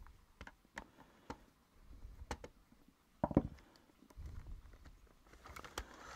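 Plastic parts of a Dyson V10 soft-roller cleaner head being worked apart by hand: scattered sharp clicks and knocks, the loudest cluster about three seconds in, between stretches of low rubbing and handling noise as the head is dismantled to reach its motor.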